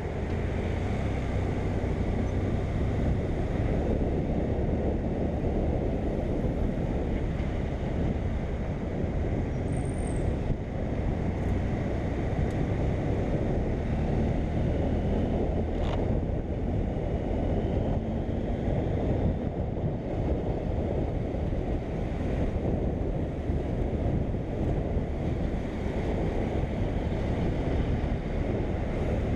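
BMW F800GS motorcycle riding at steady speed: wind rushing over the microphone, with the bike's parallel-twin engine running steadily underneath.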